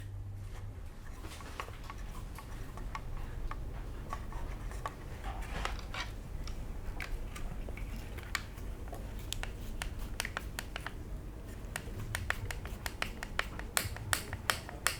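Small screws being driven into 3D-printed plastic dashboard parts: irregular light clicks and scratching of the screwdriver and parts, turning into a quick run of sharper clicks near the end as the screws tighten.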